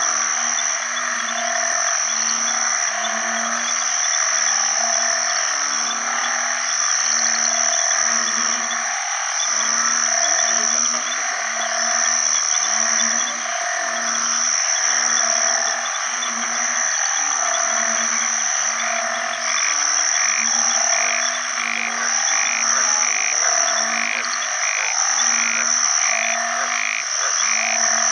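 Male banded bullfrog (Asian painted frog) giving its low, moaning mating call, repeated about once a second, over a dense chorus of insects and other frogs. A faster, higher pulsing call joins the chorus about two-thirds of the way through.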